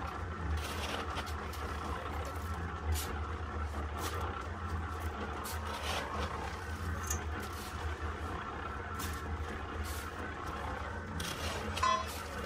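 A small drum concrete mixer running with a steady drone, while shovels scrape into sand and gravel with short, scattered strokes.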